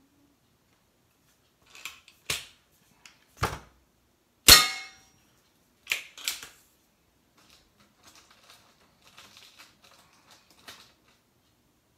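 Diana 240 Classic .177 break-barrel spring-piston air rifle being handled and fired: a few clicks and clunks, then one sharp shot with a brief metallic ring about four and a half seconds in, followed by two more clunks and faint clicking.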